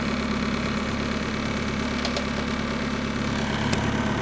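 Engine of a small hydraulic loader running steadily at idle while its forked arm holds a machine, with a couple of faint clicks about two and three and a half seconds in.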